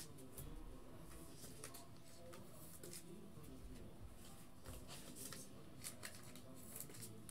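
Faint rustling and scattered light clicks of trading cards being handled.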